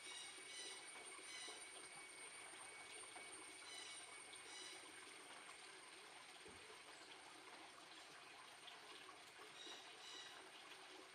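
Near silence: a faint steady hiss, with a few faint, short high-pitched chirps about four seconds in and again near the end.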